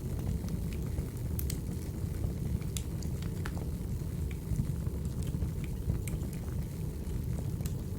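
Burning firewood crackling: irregular sharp pops and snaps over a steady low rumble of the fire.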